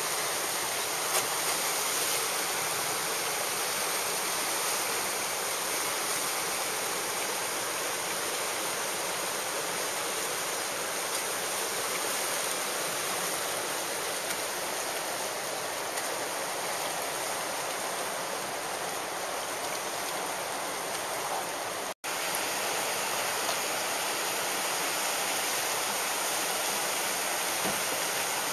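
Steady rushing noise of whitewater rapids, unbroken except for an instant when the sound drops out about two-thirds of the way through.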